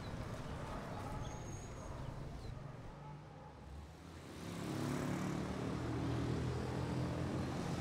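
Quiet street ambience with a few faint high chirps that dips away, then road traffic from about halfway: car and motorcycle engines running as vehicles drive through a roundabout.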